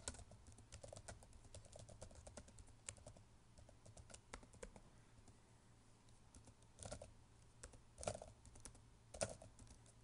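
Typing on a computer keyboard: a run of quick, faint keystrokes, then three louder key strikes about a second apart near the end.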